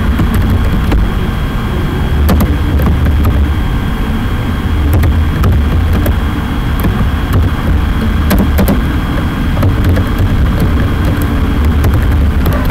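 Computer keyboard keys clicking irregularly as text is typed, over a loud steady low rumble.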